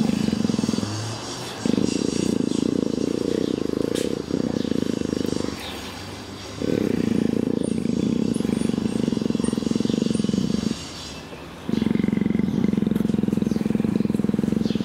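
Female African leopard in heat purring loudly: long rumbling phases of about four seconds, each followed by a pause of about a second.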